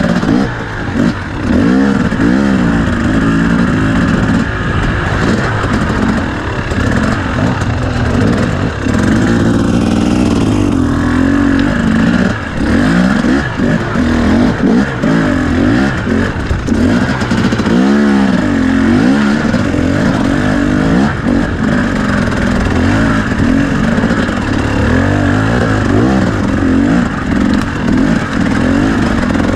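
A KTM two-stroke enduro motorcycle engine heard close from on board, revving up and falling back over and over as the throttle is worked through slow, tight, rocky terrain.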